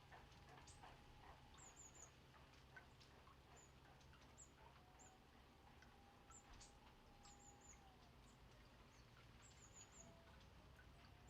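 Small songbirds calling faintly with short, very high, thin chirps, often in quick runs of two or three notes, repeated on and off.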